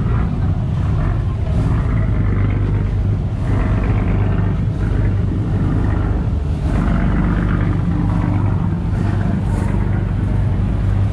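Bumboat diesel engines running at idle beside the jetty: a steady, low engine rumble.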